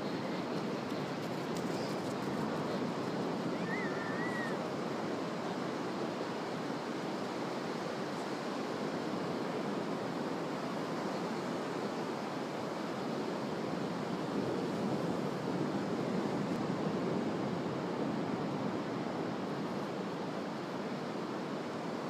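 Ocean surf breaking and washing on the shore, a steady wash that swells a little about two-thirds of the way through. A short faint chirp about four seconds in.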